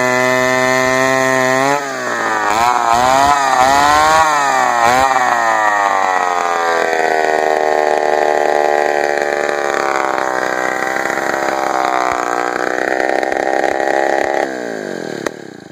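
A 1968 Poulan Model 53 two-stroke chainsaw running. It holds a steady speed at first, is revved up and down several times, then runs at a lower, wavering pitch under load as it cuts wood. It is shut off and winds down to a stop near the end.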